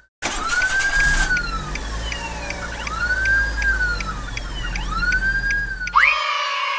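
Cartoon siren-like wail. Its pitch swoops up and slowly falls about every two seconds, over a low engine-like rumble and a steady ticking about twice a second. It ends with two quick upward whoops.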